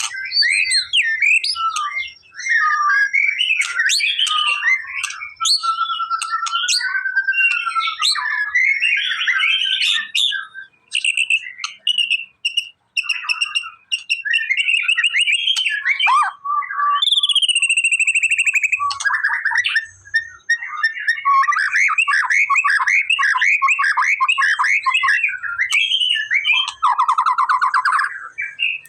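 White-rumped shama song: a long, varied run of whistled notes, rapid chirps, trills and gliding phrases, broken by a few short pauses.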